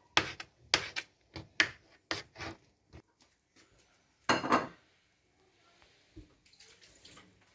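Kitchen knife chopping boneless chicken breast into small pieces on a wooden cutting board, about two cuts a second and fading over the first three seconds. About four seconds in comes one louder clatter.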